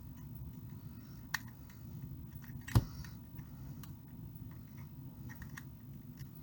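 Light clicks and taps of a soldering iron and a small circuit board being worked on, with one sharper click just under three seconds in, over a low steady rumble.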